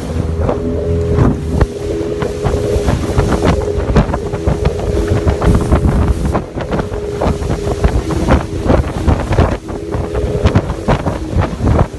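Open motorboat running at speed, its engine a steady drone, with frequent sharp knocks as the hull slaps the chop and wind buffeting the microphone.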